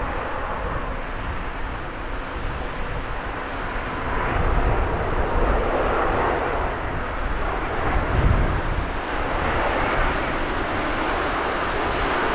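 Airbus A350-900 airliner on final approach, its Rolls-Royce Trent XWB jet engines a broad, steady rumble that grows louder about four seconds in as the aircraft nears.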